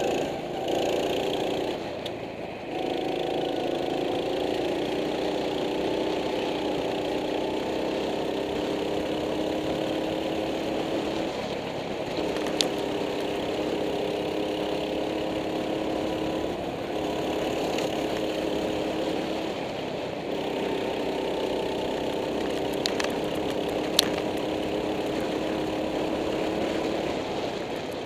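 Go-kart engine running hard, heard on board. Its pitch climbs steadily as the kart accelerates and drops each time the driver lifts off for a corner, several times over. Two brief sharp clicks are also heard.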